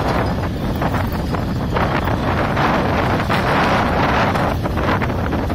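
Strong wind of about 33 knots buffeting the microphone, rumbling and gusting in waves of loudness.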